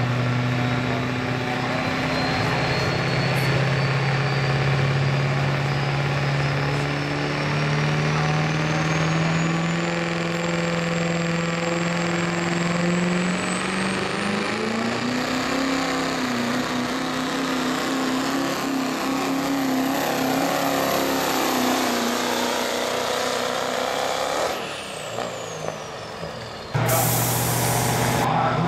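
Pro street diesel pickup pulling a sled at full throttle: a steady engine drone climbing slowly in pitch under load, with a turbocharger whistle rising steadily to a very high pitch. About three-quarters through, the whistle falls away and the engine drops off as the pull ends; near the end a louder engine with a hiss cuts in suddenly.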